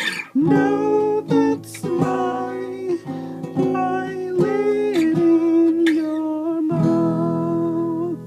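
Closing bars of an acoustic guitar song: strummed chords under a held, wordless melody line. The music stops near the end and the last chord fades.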